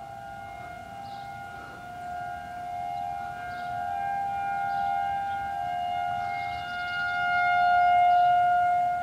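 Federal 2001 outdoor warning siren sounding a tornado warning: one steady, high wailing tone, like a trumpet on a pole. It grows louder to its peak about eight seconds in, then eases off.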